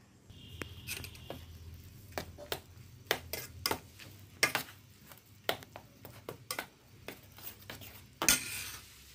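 Metal spoon clinking and scraping in a stainless steel bowl, stirring puffed rice into milk: irregular taps, with a louder run of clatter near the end. A faint low hum runs underneath.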